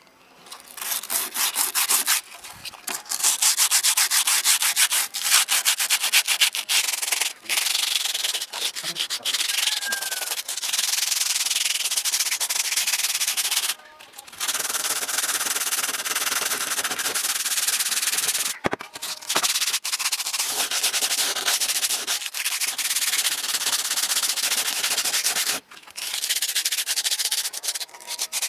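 Sandpaper scrubbing back and forth by hand along a rusty steel crosscut saw blade, scouring off the rust with rust-removal chemical. It goes in fast continuous strokes, stopping briefly a few times.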